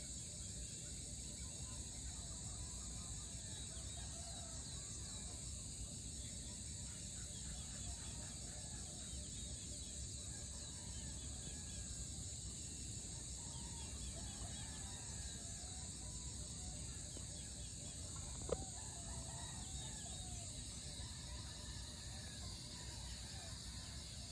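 Early-morning rural ambience: roosters crowing faintly now and then over a steady high chirring of insects and small birds. A single sharp click about three-quarters of the way through.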